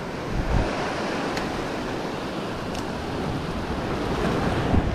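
Sea surf breaking and washing over rocks: a steady rush of waves.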